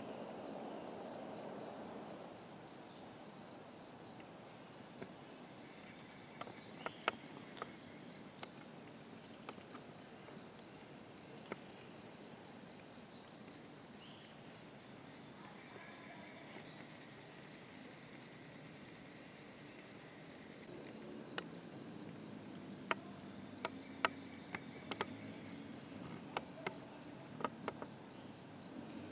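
Steady insect chorus: a continuous high buzzing with a rapid pulsing trill just beneath it. Scattered sharp clicks or snaps come through it, most of them in the last several seconds.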